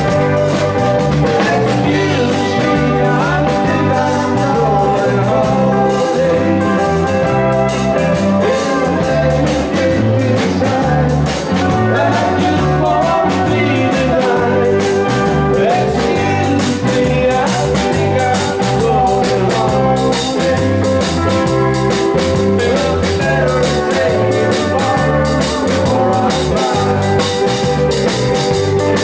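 Live band playing rock and roll: electric bass line and drum kit under guitar, with a man singing into the microphone.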